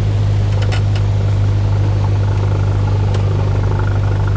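Single-engine light aircraft's piston engine running steadily at low power, heard from inside the cabin while the plane is on the ground, with a deep even hum and a few faint clicks.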